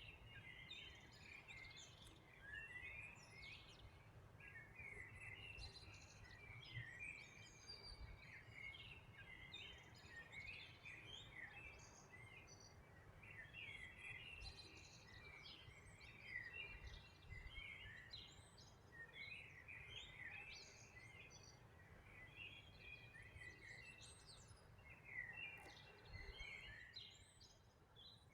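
Quiet chorus of several small songbirds chirping and trilling continuously in many short, overlapping phrases, over a faint low rumble of background noise.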